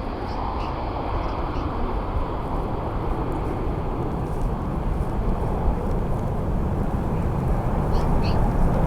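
Jet airliner engine noise, a broad rumble that grows steadily louder, with a couple of faint short chirps near the end.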